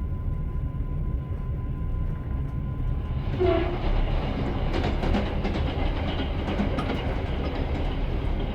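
Train wheels running on rails: a steady low rumble. About three seconds in it grows brighter and louder, with a brief low tone and a run of sharp clicks and clatter from the wheels.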